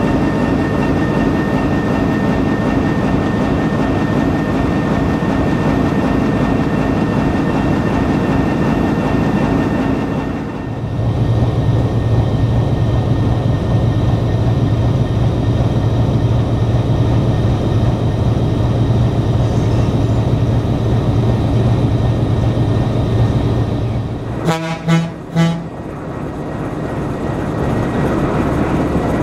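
Alco RS-1 diesel locomotive running with a steady engine sound that drops abruptly to a lower, steady hum about ten seconds in. Near the end come three short horn toots in quick succession.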